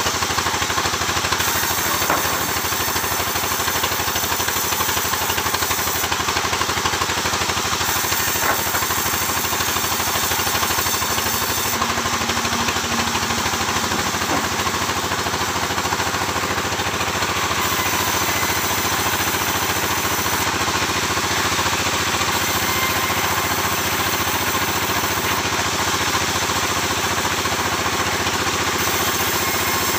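Sawmill machinery running steadily, an engine drone with a constant hum and hiss.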